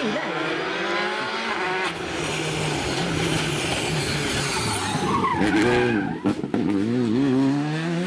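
Skoda Fabia R5 rally car's turbocharged four-cylinder engine under hard throttle as it approaches, its note climbing for about two seconds. It then shifts up and runs loud and close, and about five seconds in it lifts off, with the revs rising and falling as the car turns into a bend.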